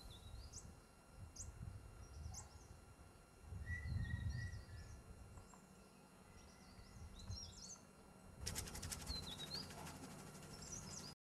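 Small birds chirping faintly over a low rumble. Near the end, a rapid, even ticking or whirring starts and cuts off suddenly.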